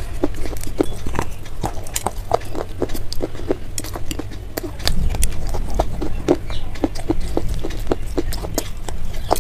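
Crisp crunching of slate pencil stone being bitten and chewed close to the microphone: a run of short, sharp crunches, about two to three a second, over a steady low hum.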